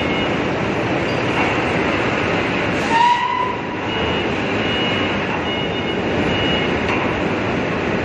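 Steady loud industrial noise from a working tilting rotary aluminium-melting furnace and a forklift pushing a long steel bar into its mouth. A short high squeal comes about three seconds in.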